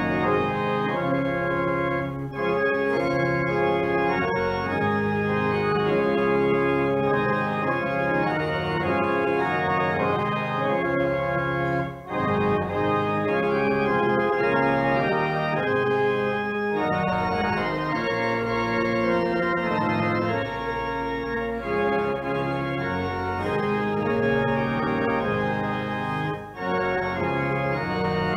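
Church organ playing a piece of sustained chords in phrases, with brief breaks between phrases about 2, 12 and 26 seconds in.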